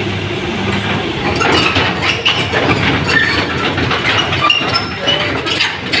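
Steel crawler tracks of a LiuGong 915E excavator clanking and squealing as it drives down off a flatbed truck onto the pavement, over the steady hum of its diesel engine.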